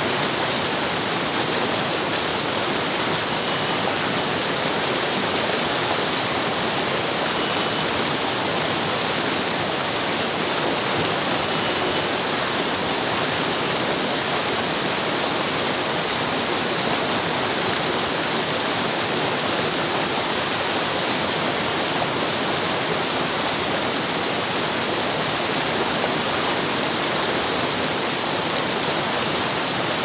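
River water flowing: a steady, even rush with a bright hiss, unchanging throughout.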